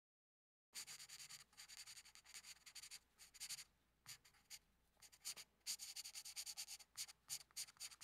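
Felt-tip marker writing on paper: a run of short scratchy strokes, with a pause about halfway before the strokes pick up again.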